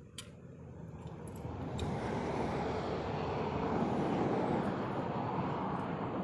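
A passing vehicle: a steady rushing noise that builds over the first few seconds, is loudest about four seconds in, then eases slightly. Two sharp clicks in the first two seconds, from the trap wire and hardware being handled at the stake.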